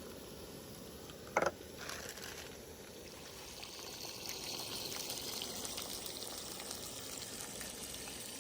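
Ribeye steaks sizzling in a pan: a steady frying hiss that grows a little louder after about three and a half seconds. A brief loud knock about a second and a half in.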